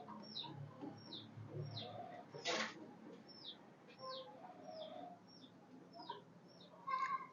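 Faint bird chirping: a string of short, high chirps, each falling in pitch, about one or two a second, with a single sharp click about two and a half seconds in.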